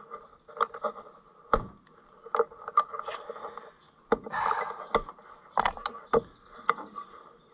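Scattered sharp clicks and knocks, about a dozen at irregular intervals, each with a short ring, from hand work on the tractor's ignition coil and distributor cap.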